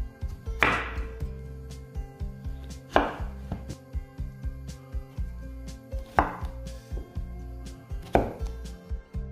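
Chef's knife chopping zucchini on a wooden cutting board: repeated sharp chops, four of them standing out about two to three seconds apart, over background music.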